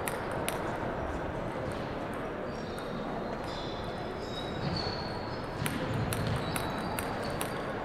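Light, sharp clicks of a table tennis ball bouncing on the table and in hand, a few scattered at first and then a quicker run of bounces in the second half as the server readies to serve, in a large echoing hall.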